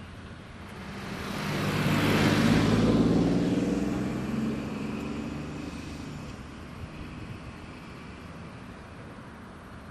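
Kanto Railway Joso Line diesel railcar passing: the engine's hum and the rush of wheels on rails swell to a peak two to three seconds in, then fade away.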